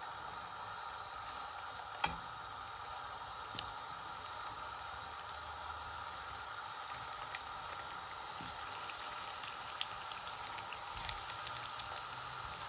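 Breadcrumb-coated potato croquettes frying in hot oil: a steady sizzle with sharp crackling pops that come more often toward the end. A single knock about two seconds in.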